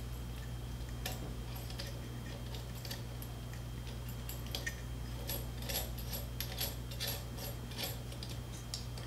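Faint, irregular small clicks and light scrapes of a capacitive auto bed-leveling sensor's mounting nuts being turned by hand in its plastic mount, more frequent in the second half, over a steady low hum.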